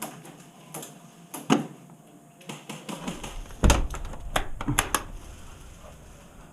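A series of sharp clicks and knocks at irregular intervals, the loudest about three and a half seconds in, with a low rumble in the middle stretch.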